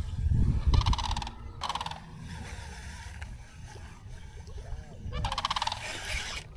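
Bird calls: a short burst of a fast-pulsed call twice in the first two seconds, then a longer pulsed call of over a second near the end. Low rumble in the first second or so.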